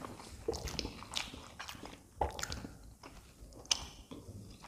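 Close-miked chewing: wet mouth smacks and small clicks at an irregular pace, with one sharper click a little before a forkful of Maggi noodles goes into the mouth near the end.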